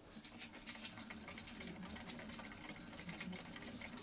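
Mongolian gerbil running in a wooden exercise wheel: a fast, steady rattle of patting feet and the spinning wheel, starting a moment in.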